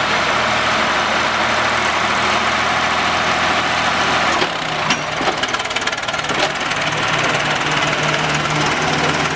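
Swaraj 855 and Mahindra 605 diesel tractors running hard under load in a tractor tug-of-war, with a heavy, rattling engine note. About four and a half seconds in the engine sound changes, with a few sharp knocks. Then a steady engine note returns at a different pitch.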